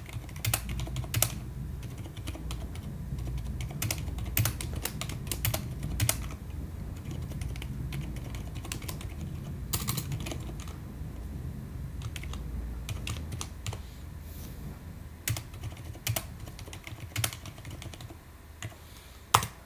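Typing on a computer keyboard: irregular keystroke clicks over a low background hum, with one louder sharp click near the end.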